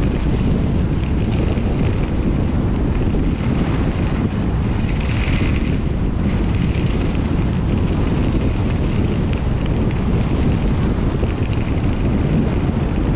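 Steady, loud wind buffeting the microphone of a skier's body-worn camera during a downhill run, with skis hissing over hard-packed, tracked snow underneath.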